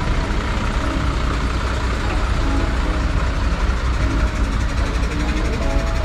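Busy city street: steady low traffic rumble from passing vehicles, with faint voices of people around.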